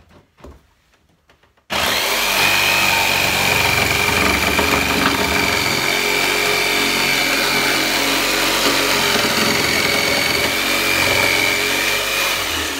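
Black & Decker jigsaw starting up abruptly a couple of seconds in and running steadily with a high motor whine as its blade cuts through an OSB countertop, then slowing near the end.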